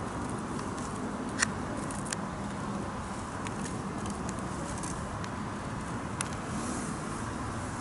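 Steady road traffic noise from a busy road, with a few short sharp clicks, the loudest about one and a half seconds in.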